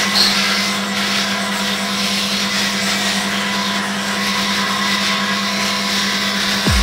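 Corded electric shaver buzzing steadily as it runs over skin.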